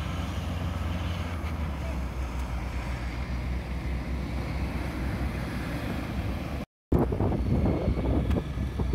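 A diesel engine running steadily, with surf breaking on the beach. About seven seconds in the sound cuts out for a moment, and after that wind buffets the microphone.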